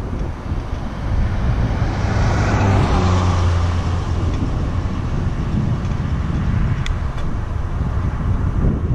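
A road vehicle passing, swelling to its loudest about three seconds in and then fading, over a steady low rumble.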